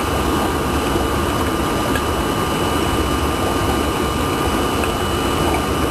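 Steady mechanical hum and hiss, even throughout, with a faint constant high whine over it.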